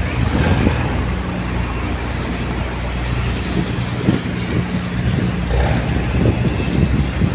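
Tugboat's engine running steadily, a low drone, with wind and water noise over it.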